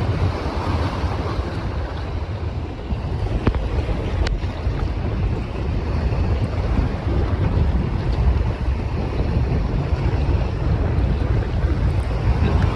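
Steady wind rumbling on the microphone over the wash of open water, with two faint clicks about three and a half and four seconds in.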